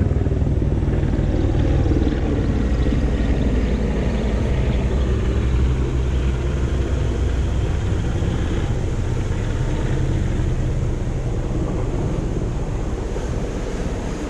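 Helicopter passing low overhead: a steady, low rotor and engine sound that slowly fades toward the end.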